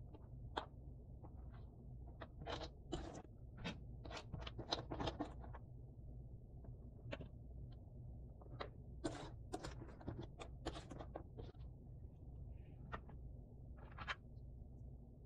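Jigsaw puzzle pieces being handled: irregular light clicks and scrapes, busiest from about two to six seconds in and again around nine to eleven seconds, over a faint steady low hum.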